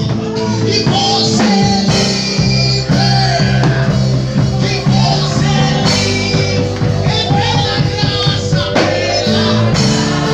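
Rock-style song with a sung vocal over a steady, stepping bass line.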